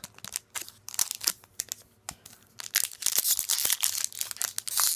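Magic: The Gathering booster pack wrapper being torn open and crinkled by hand, a run of sharp crackles that grows denser in the last couple of seconds.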